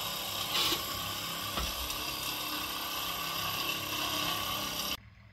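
Cordless power metal shears running steadily as they cut lengthwise along a metal roofing panel. The sound cuts off abruptly near the end.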